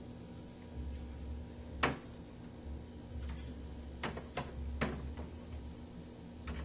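Sharp clicks and knocks of a CRT television's circuit board and wire connectors being handled and fitted into its plastic chassis: one about two seconds in, then a cluster about four to five seconds in. A steady low hum lies underneath.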